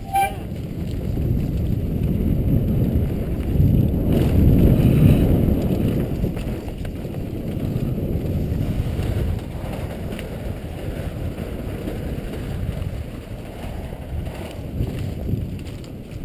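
Wind rushing over a helmet camera's microphone, with the rumble of a downhill mountain bike's tyres rolling fast over a dirt trail, loudest about four to five seconds in.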